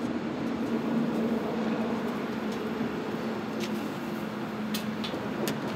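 A motor vehicle engine running steadily with a low, even hum. A few light clicks come in the second half.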